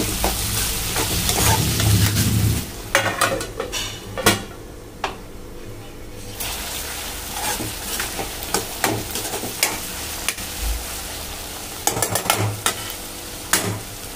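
Metal spoon stirring peas and sweet corn through an onion-tomato masala frying in a metal kadhai, with a steady sizzle and frequent clicks and scrapes of spoon against pan. The sizzle is loudest for the first few seconds, then drops.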